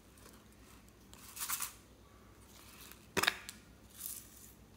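Plastic slime container and its lid being handled: a brief crinkling rustle, a sharp click just after three seconds in, then another short rustle.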